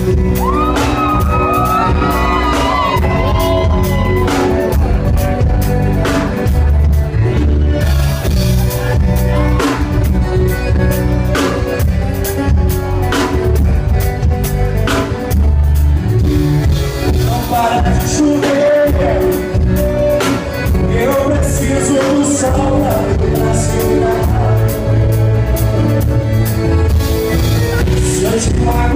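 A live band plays a romantic sertanejo song with a steady beat, and a voice sings over it at times.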